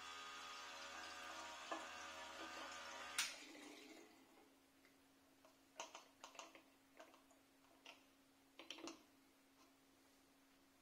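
Small battery-powered electric transfer pump humming steadily as cider runs through its tube into a plastic funnel and bottle, switched off with a click about three seconds in. Then drips and light plastic-and-glass clicks as the funnel is moved to the next bottle, and the pump clicks back on at the very end.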